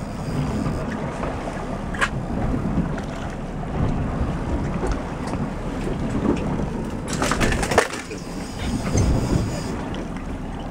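Wind buffeting the microphone over sea and boat noise aboard a small fishing boat, a steady rumbling hiss. A sharp click about two seconds in and a quick cluster of clicks and knocks around seven to eight seconds in.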